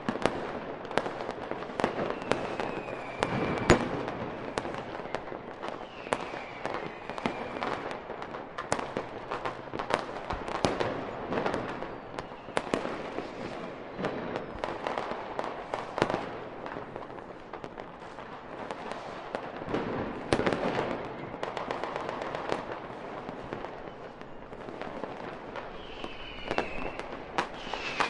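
Fireworks display: a dense, continuous run of sharp bangs and crackling, with a few short whistling glides falling in pitch.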